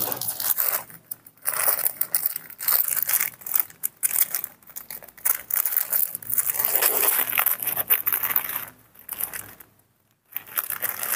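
Plastic packet crinkling and crackling as it is handled and pulled open in gloved hands, in several bouts with short pauses between them.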